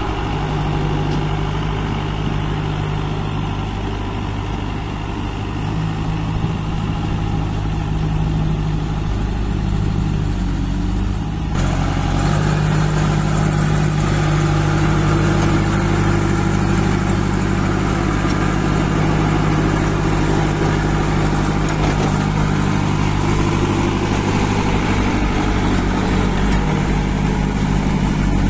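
Kirloskar diesel engine of a JCB 2DX backhoe loader running steadily, getting louder and harsher about eleven seconds in.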